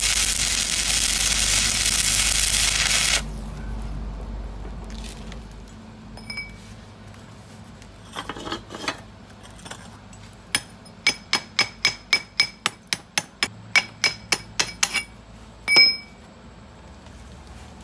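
A loud steady hiss that cuts off suddenly about three seconds in, then a quick series of light metal-on-metal taps, about four a second, each with a short ring, ending in one louder ringing strike.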